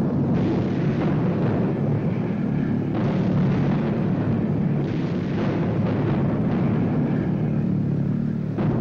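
Anti-aircraft barrage: a continuous rumbling din of gunfire and bursting flak shells, with sharper blasts about three seconds, five seconds and near the end, on an old newsreel soundtrack.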